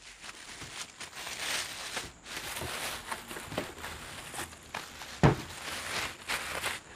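Clear plastic wrap rustling and crinkling as a small inverter welder is pulled out of its bag and the plastic is crumpled. A single dull thump about five seconds in, as the machine is set down on the wooden bench.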